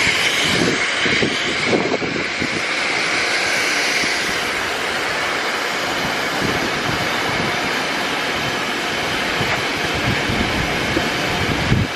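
Dodge Charger R/T's 5.7-litre HEMI V8 on a cold start, running at a steady, loud fast idle just after firing up. A couple of short knocks come near the end.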